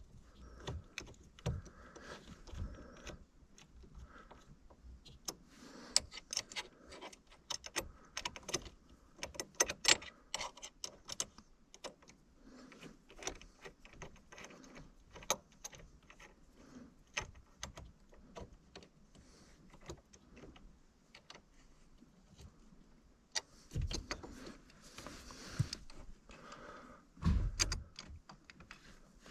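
Irregular small metallic clicks and clinks of screws and hand tools being worked while pedal hardware is fitted, with two dull thumps near the end.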